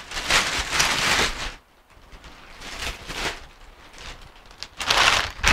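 Clear plastic bag rustling and crinkling as it is pulled off an alloy motorcycle top box, in bursts: a long one at the start, a softer one in the middle and another near the end.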